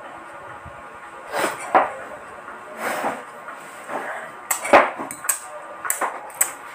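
Metal spoon and fork clinking and scraping against a ceramic bowl while noodles are stirred and scooped: a dozen or so sharp, irregular clinks.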